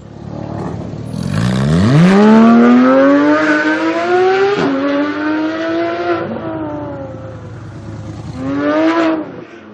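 Porsche 991 GT3 flat-six through an iPE titanium exhaust accelerating hard. The revs climb steeply, then more slowly, with a quick upshift about four and a half seconds in, and the sound fades as the car pulls away. A short rising burst of revs comes near the end.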